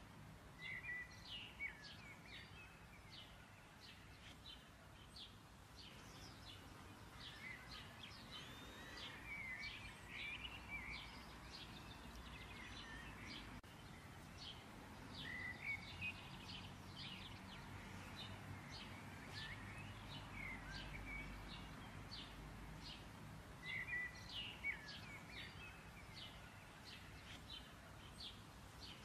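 Small birds chirping and twittering faintly in quick, repeated short notes and little sweeping calls, with louder bursts every several seconds, over a low steady background noise.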